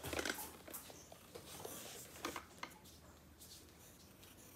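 Faint scratching of a pencil writing on notebook paper, with a few small ticks.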